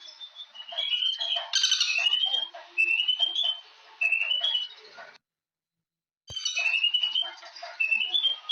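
A chorus of birds chirping and calling, with many repeated short rising chirps over a busy background of other calls. Just after the middle the sound cuts out completely for about a second and comes back with a click.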